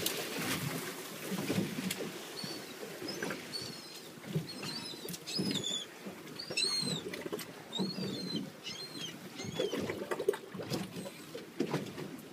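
Water slapping and splashing against the hull of a small boat on choppy sea, with a run of short, high chirping squeaks through the middle.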